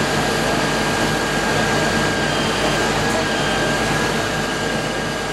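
Heavy mining machinery running steadily: the diesel engines and hydraulics of a drill rig and a crane truck, with a thin steady whine over the engine noise.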